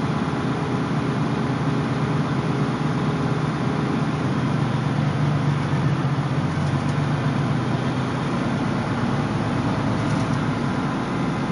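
Semi truck and trailer hauling a heavy load, moving slowly: a steady low engine drone with road noise.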